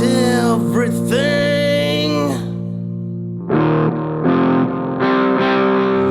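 Music with electric guitar through distortion effects, playing sustained notes that bend in pitch, with a softer stretch just before the middle.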